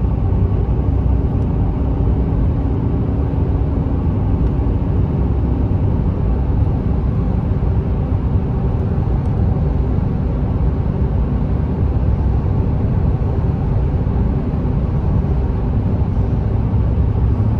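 Steady engine and road noise of a moving vehicle heard from inside the cabin, a continuous low rumble with no distinct events.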